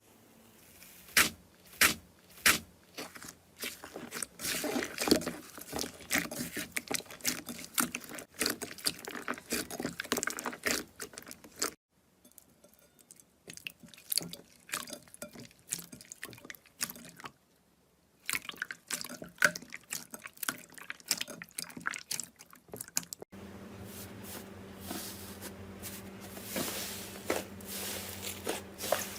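Slime being squished and stretched by hand, making dense runs of wet, sticky clicks and pops. There is a much quieter stretch in the middle, and near the end a steady low hum runs under the clicks.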